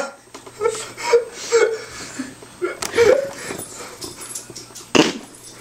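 A young man's short, wheezy bursts of laughter, several in a row at an uneven pace. About five seconds in there is a single sharp noise.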